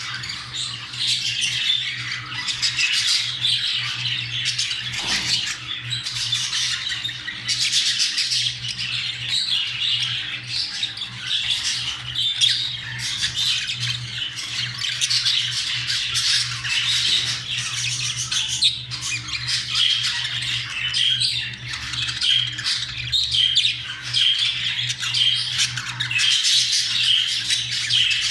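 Budgerigars chattering and squawking without a break: the excited warbling calls of a budgie pair during courtship and mating. A steady low hum runs underneath.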